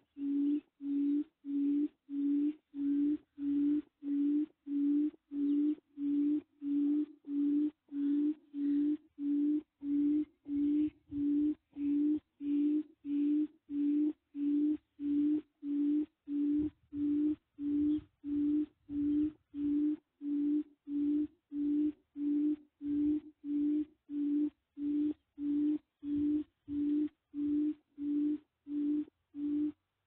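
A small portable speaker playing a recorded bird call as a trapping lure. A short, low, steady note repeats evenly about one and a half times a second.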